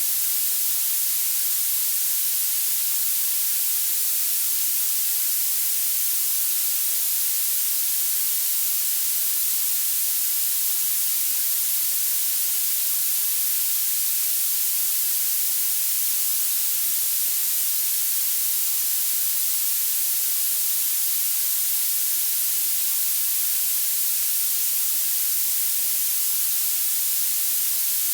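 Violet (purple) noise: a steady, unchanging hiss weighted toward the highest frequencies, with almost no low end.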